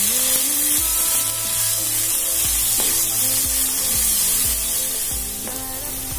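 Sliced onions and green chillies frying in hot mustard oil in a kadai, sizzling steadily while a wooden spatula stirs them.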